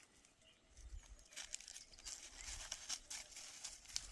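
Light, scattered clicking and rustling outdoors, with occasional low wind rumble on the microphone.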